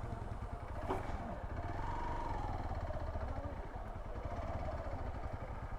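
Motorcycle engine running at low speed, a steady rapid low pulsing, most likely the Hero XPulse 200's single-cylinder engine.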